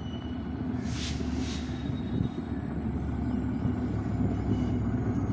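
EMD GT42ACL diesel-electric locomotive approaching with a passenger train: its diesel engine is a low, steady drone that grows louder as it nears. Two short hisses come about a second in.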